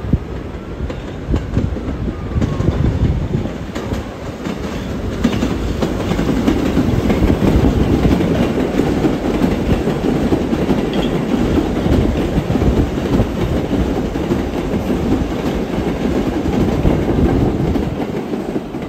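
New York City subway 1 train with R62A cars passing close by, wheels clattering on the rails. The sound swells over the first several seconds as the train draws near, then stays loud as the cars roll past.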